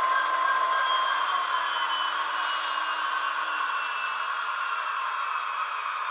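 Class 66 diesel engine sound from a Soundtraxx Econami decoder, played through the model locomotive's small speaker with the locomotive standing still. The engine tones slowly slide lower in pitch partway through and the sound eases slightly.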